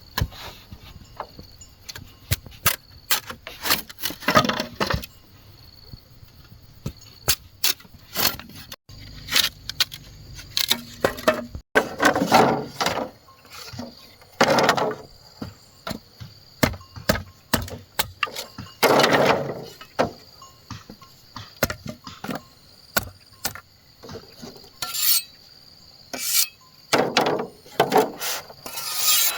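Bamboo being worked by hand: irregular wooden taps and knocks, with a few longer scraping or rasping strokes about twelve, fifteen and nineteen seconds in and again near the end.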